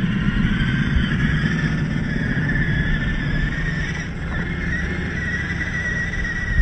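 1/10-scale RC crawler's brushed 540 electric motor and geartrain whining as it climbs loose sand and gravel, the pitch wavering slightly with the throttle, over a steady low rumble.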